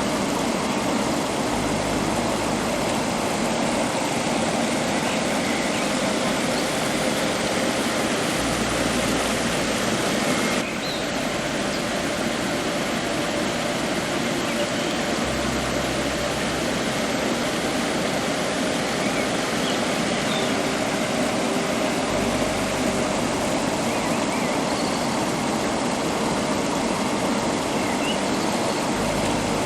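Steady rushing water of a river or waterfall, a constant even hiss with a low rumble that swells and fades at intervals.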